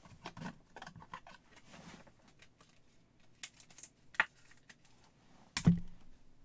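Trading cards being handled and shuffled by hand: light rustles and clicks of card stock, with one louder thump about five and a half seconds in.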